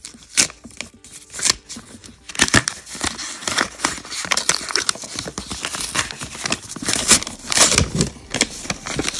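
White wrapping paper crinkling and rustling as it is peeled and torn open around a small box, with many quick sharp crackles.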